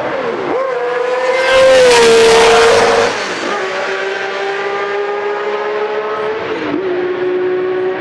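Honda RA300's 3.0-litre V12 race engine running at high revs down the straight, a strong, even note that is loudest as the car passes close about one and a half to three seconds in. The pitch dips briefly and recovers near the start and again about six and a half seconds in.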